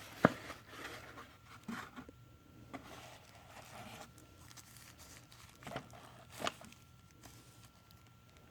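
Cardboard product packaging being handled and pulled out of the side of the box: a sharp click about a quarter second in, then scattered rustling and scraping, with two more clicks a little after five and a half and six seconds in.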